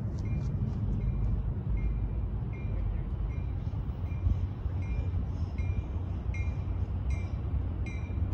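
Railroad grade-crossing warning bell dinging evenly, about one and a half strikes a second, over a steady low rumble, as a train approaches the crossing.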